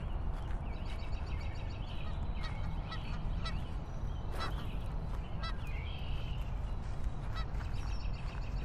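Outdoor ambience: a steady low rumble with about half a dozen short honk-like calls scattered through it.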